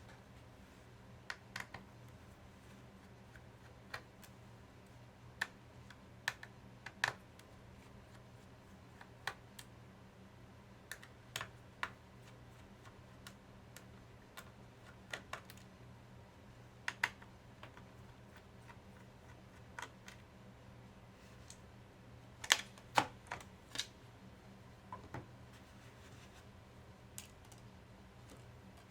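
Sparse, irregular light clicks and taps of an Asus K50IJ laptop's plastic case and parts being handled during memory and hard drive replacement, over a faint steady hum.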